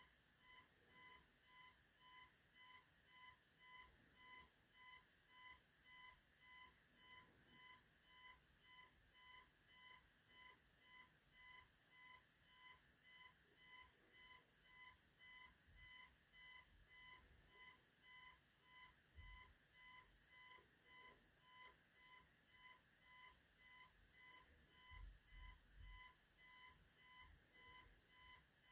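Faint electronic beeping: one steady pitched beep repeating evenly, about one and a half beeps a second. A few faint low thumps come in near the end.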